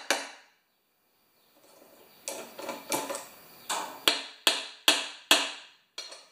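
A hammer striking the centre bolt of a puller fitted to a Tecumseh lawnmower engine's flywheel: a string of sharp metal-on-metal blows, each ringing briefly. One comes at the start, then a quickening run of about eight from about two seconds in, roughly half a second apart. The blows are meant to shock the flywheel loose from the crankshaft.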